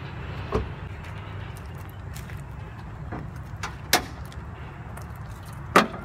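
Bonnet of a 2021 Suzuki Wagon R being unlatched and lifted: three sharp clicks and knocks of the latch and hood, the loudest as the bonnet comes up near the end, with a few fainter ticks in between, over a steady low rumble.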